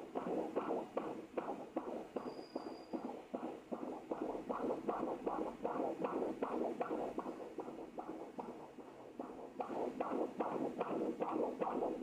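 Fetal heartbeat picked up by a Doppler ultrasound probe: a fast, regular whooshing pulse of about three beats a second that fades a little shortly before the end and then comes back.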